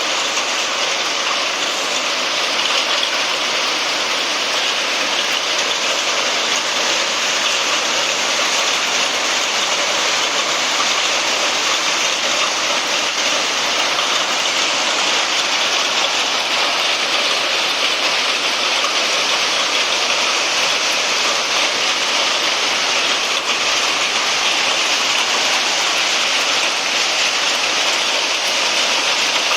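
Heavy rain mixed with hail falling, a steady dense hiss of drops and hailstones striking surfaces.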